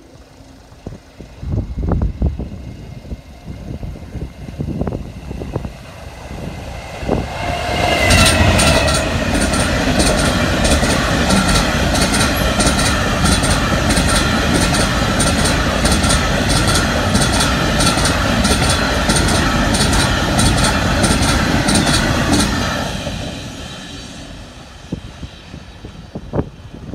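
Freight train passing at speed. It comes in suddenly about eight seconds in, with a high whine that slides down in pitch. For some fifteen seconds the wagon wheels click over the rail joints about twice a second, then the sound dies away.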